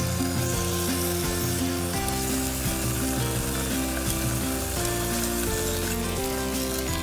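Chicken thighs sizzling as they fry in a camping pot on a gas stove, with metal tongs moving the pieces. Background music with held notes plays over it.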